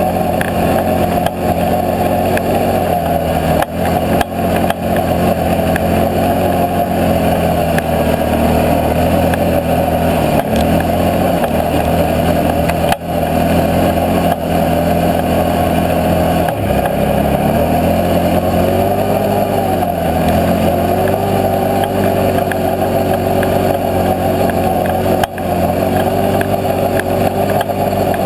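Can-Am Outlander 650 XMR ATV's V-twin engine running steadily while riding a snowy trail, its engine speed dipping and picking back up a few times around the middle.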